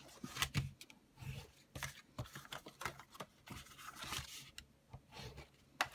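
Bone folder burnishing the folds of a cardstock box: a series of short, irregular rubbing and scraping strokes with paper rustling as the card is handled, and a sharp tap near the end.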